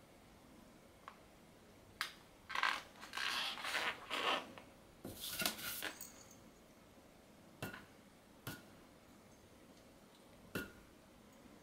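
A cat pawing and swatting at a rubber modeling balloon: a few seconds of scratchy rustling as its paws and claws scrub against it, then three separate sharp taps.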